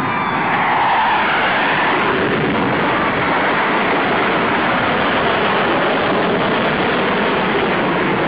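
Military fighter jet making a low, fast pass, its jet engines giving a loud, steady roar with a sweeping shift in tone in the first few seconds.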